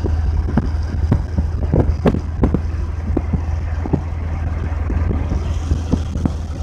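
Steady low rumble of a moving vehicle, heard from inside as it drives along a road, with irregular short clicks and knocks over it.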